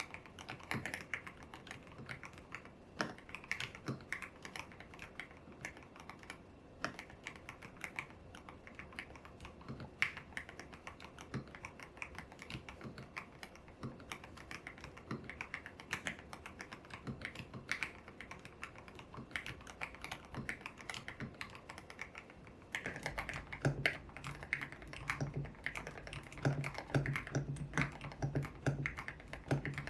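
Continuous typing on a YUNZII X75 Pro mechanical keyboard with lubed Kaith Jellyfish switches and a tape mod, the keystrokes clacking in quick runs on milky keycaps. About 23 seconds in it changes to the same board with solid keycaps: the keystrokes are louder, with a steady low hum underneath.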